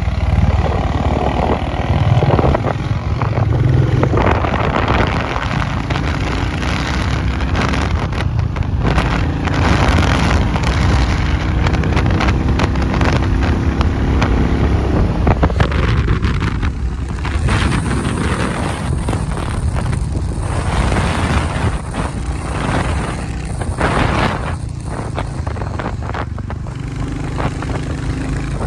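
Royal Enfield motorcycle running steadily at road speed, its engine rumble mixed with loud wind noise on the microphone.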